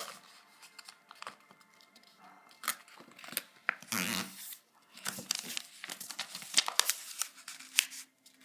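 A sheet of paper being folded and creased by hand: rustling and crinkling with many sharp little crackles, and a longer, louder rustle about four seconds in.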